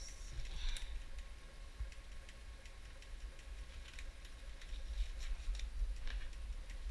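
Light handling noise: faint scattered clicks and rustles as gloved hands move about, over a steady low rumble from the body-worn camera moving.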